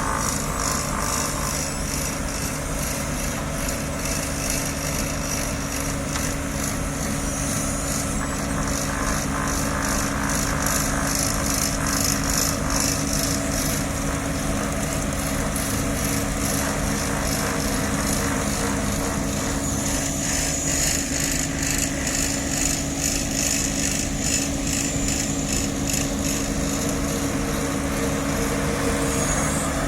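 Diesel engines of an asphalt paver and dump truck running steadily at a constant speed.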